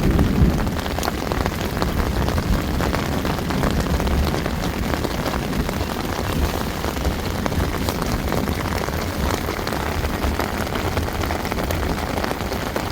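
Steady rain falling, with many fine drop ticks over a low rumble underneath.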